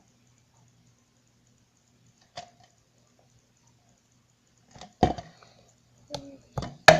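A few sharp clicks and knocks from objects being handled on a table, first a faint one, then a quick cluster of louder knocks toward the end, the last one the loudest.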